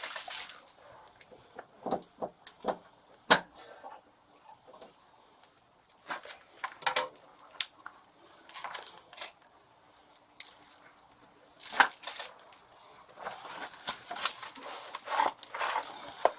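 A door lock being picked: irregular small metallic clicks, taps and scrapes of the pick and tension tool working the lock, with a sharper click about three seconds in and another near twelve seconds, and busier scratching toward the end.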